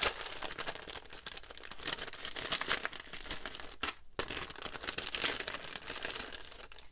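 Crinkling of a thin iridescent plastic cellophane bag being handled and pulled about, a continuous crackly rustle that breaks off briefly about four seconds in.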